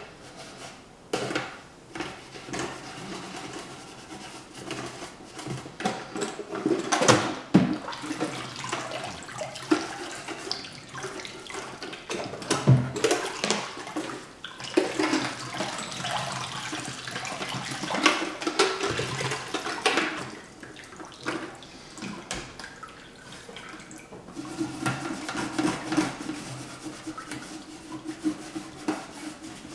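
Soft toothbrush scrubbing cleanser over the painted sheet-metal body of a prewar Lionel standard gauge boxcar, with water splashing in a stainless steel sink. Scattered sharp knocks, the loudest about seven and thirteen seconds in.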